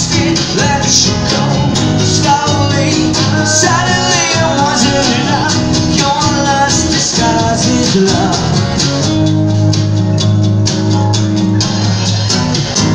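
Live acoustic band playing: a male voice singing over strummed acoustic guitars, with percussion keeping a steady beat. The singing thins out in the second half, leaving held guitar chords under the beat.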